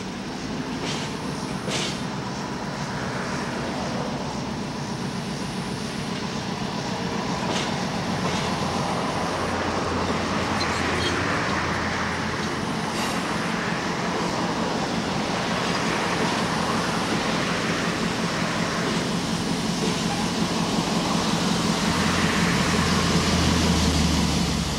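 Passenger train rolling past close by, a steady rumble of wheels on the rails that slowly grows louder, with a few sharp clicks in the first two seconds. A low hum strengthens near the end as the last car passes underneath.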